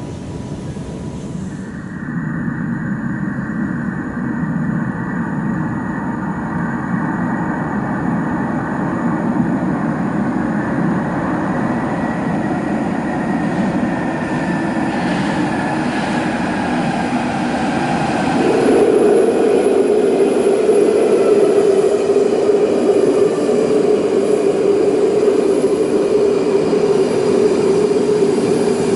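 London Underground 1995 Stock tube train approaching and pulling into the platform: a rumble that grows steadily louder, with an electric motor whine falling in pitch as it slows. A loud steady tone joins about two-thirds of the way in.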